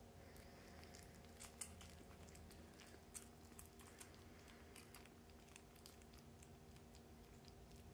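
A litter of kittens suckling from their mother cat: soft, irregular wet clicks and smacks from their mouths, a few slightly louder than the rest, over a low steady hum.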